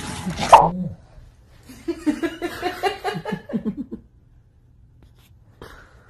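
A person laughing in a run of short bursts, about five a second, for roughly two seconds. Before it there is a second of rough handling noise ending in a loud bump.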